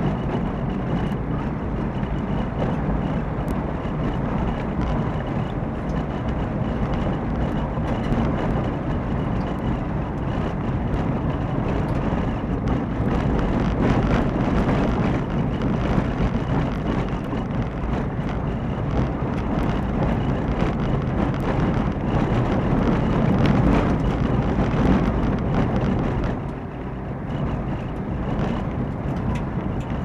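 A car driving along a forest road, heard from its dashcam inside the cabin: steady engine and tyre rumble with many small ticks and knocks scattered throughout. The noise drops for a moment about 26 seconds in.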